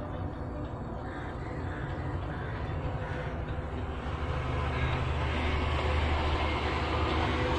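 Low rumble of a train running on the rails, growing steadily louder from about halfway through.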